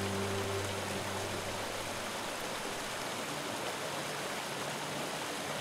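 Stream water rushing over rocks, a steady hiss of running water. Low held music notes fade out within the first two seconds, and a faint low tone comes back about three seconds in.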